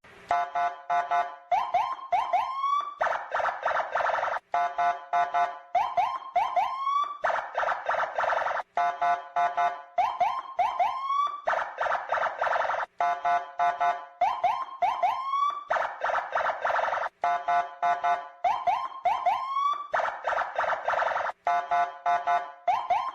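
Electronic siren-style alarm cycling through a fixed sequence of stepped chirps, quick rising whoops and a warbling tone, repeating about every four seconds.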